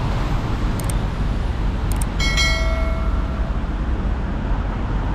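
Steady outdoor rumble of traffic, with a short bell-like metallic ring about two seconds in that fades out over about a second.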